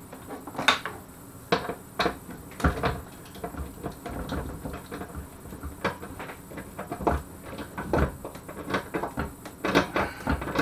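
Irregular clicks and knocks of metal hardware against a steel TV wall-mount bracket as a bolt and washer are fitted and the bolt is started by hand.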